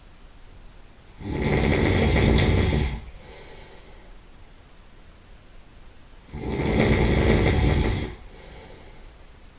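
Loud nasal snoring from a sleeping person: two snores about five seconds apart, each lasting about two seconds, each followed by a fainter breath.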